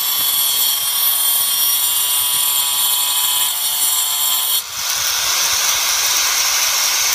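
Electric angle grinder with its disc cutting grooves into a wooden chopping board, a high steady whine. About two-thirds of the way through the sound dips briefly, then turns from a whine to a harsher hiss.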